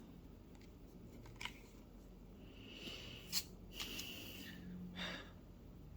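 Faint rustling and a few sharp clicks of Pokémon trading cards being handled and flipped through, the loudest click about three and a half seconds in.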